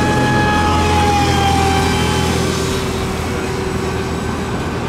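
Radio-controlled racing boats running flat out across the water, their motors giving a high whine. The pitch slides slowly lower as one passes, and it grows a little quieter about halfway through. A steady low rumble runs underneath.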